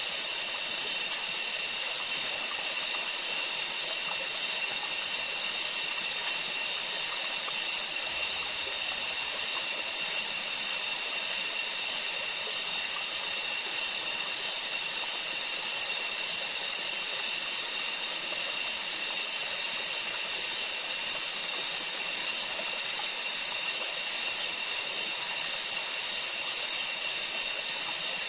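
Steady, high-pitched rainforest insect chorus, an unbroken shrill hiss that holds level throughout.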